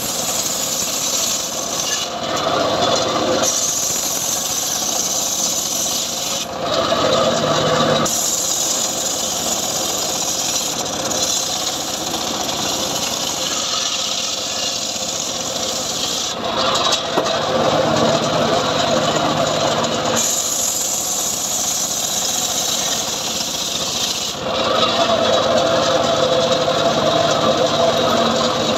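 A homemade circular saw bench ripping johar logs lengthwise, its big blade running without pause while the cutting sound changes every few seconds as each pass through the wood starts and ends.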